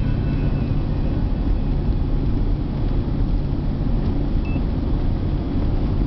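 Steady low rumble of a car on the road, heard from inside the cabin.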